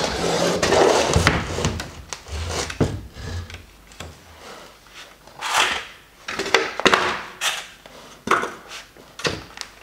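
Handling noise: a resin thermoforming mould panel scrapes and rubs as it is shifted and stood against other moulds. A quieter stretch follows, then several sharp knocks and clacks near the end as a thin plastic tray is picked up from the tile floor.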